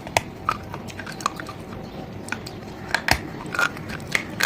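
A person biting and chewing something hard and brittle: irregular sharp crunches, the loudest about three seconds in.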